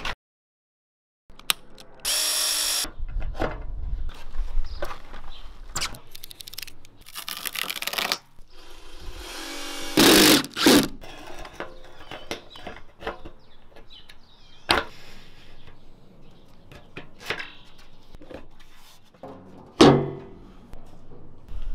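Installation work: a cordless power drill runs in a few short bursts, between scattered clicks and knocks of hand work on metal screen tracks.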